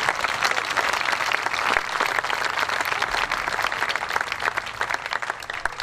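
Audience applauding, many hands clapping at once, the clapping thinning slightly toward the end.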